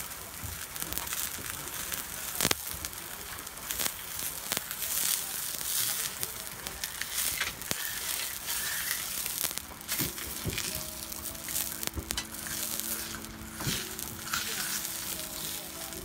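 A slab of pork fat sizzling as it is rubbed across a hot iron griddle plate to grease it. The hiss swells and eases as the fat is pressed and dragged, with scattered pops and crackles.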